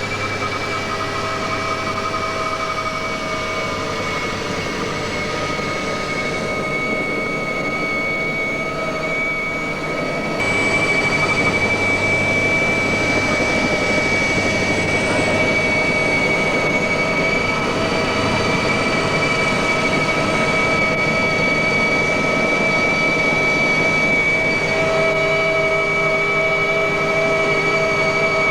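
Mi-2 helicopter in flight heard from inside the cabin: a steady whine from its twin GTD-350 turboshaft engines over a constant rush of noise, becoming louder about ten seconds in.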